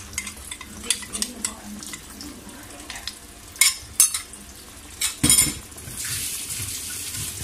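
A metal spoon clinks in a small bowl as cornflour slurry is stirred, then a few loud sharp knocks of metal on metal as the slurry goes into the wok of broth. Near the end comes a steady hiss from the wok.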